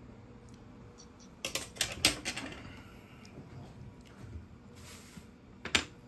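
Metal cutlery clicking and scraping against a ceramic dinner plate: a quick cluster of sharp clinks about a second and a half in, and one more loud clink near the end.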